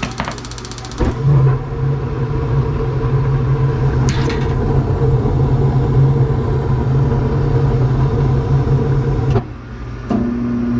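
Furnace motor starting about a second in, running with a steady hum, then cutting off abruptly near the end.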